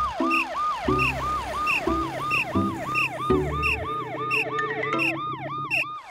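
Cartoon emergency-vehicle sirens: one siren sweeps up and down about three times a second, and a second, higher siren joins about halfway through.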